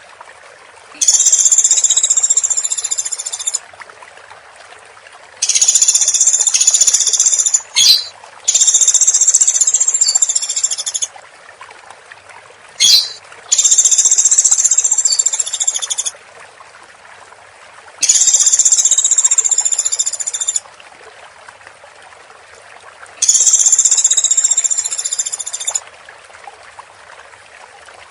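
Woodpecker calling in dense, high-pitched bursts of about two and a half seconds each, six in all, with pauses of about two seconds between them. A steady faint hiss runs underneath, and there are two brief sharp clicks near the middle.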